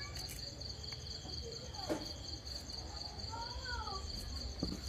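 Crickets trilling in a steady, pulsing chorus, with two sharp knocks of a steel cleaver against a wooden chopping board, one about two seconds in and one near the end.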